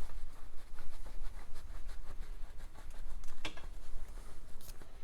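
Hands handling and wiping a small metal part at a workbench: light rubbing and faint ticks, with two small clicks about three and a half seconds in and near the end.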